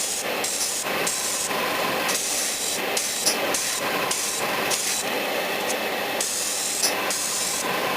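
Airbrush spraying in short, repeated bursts: the hiss of air cuts in and out every half second or so as the trigger is worked.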